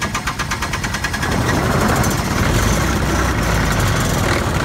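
John Deere 1025R's three-cylinder diesel being cranked on a cold start after glow-plug heating, with no block heater: the starter turns it over in an even chug of about five beats a second. About a second in it catches and runs on steadily, louder and rougher.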